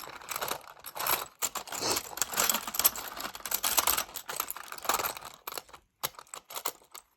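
Coins clinking and clattering as they are handled and counted out, a dense run of small sharp clicks that thins to a few separate ones near the end.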